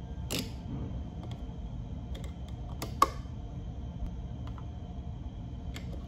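A few small clicks and taps of a screwdriver and wire being worked at a relay socket's screw terminals, the sharpest about three seconds in, over a low steady background noise.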